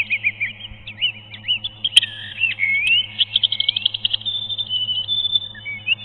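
Songbird singing: quick whistled notes that slide up and down, then about three seconds in a fast trill of repeated notes running into a held high note. A sharp click falls about two seconds in, over a faint steady low hum.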